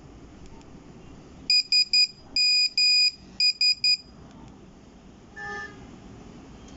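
Nokia 1100 mobile phone's monophonic buzzer beeping the classic Nokia message tone: three short beeps, two long, three short, which is "SMS" in Morse code. A single brief, softer, lower beep follows a moment later.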